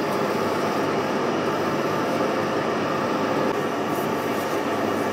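Steady engine and drivetrain drone of a farm machine, heard from inside its closed cab.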